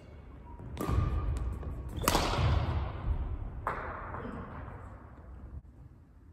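Three sharp cracks of a badminton racket hitting the shuttlecock, about a second and a half apart, the second the loudest. Each rings on in the gym's echo.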